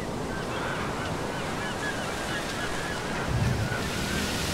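Sea surf washing over rocks with a steady rush, swelling as a wave breaks about three seconds in, while birds call over it in many short, quick chirps.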